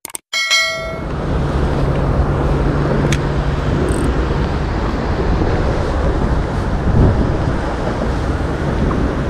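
A short bell-like chime that rings and fades in the first second, then a steady outdoor rumble of road traffic on the bridge overhead, mixed with wind on the microphone.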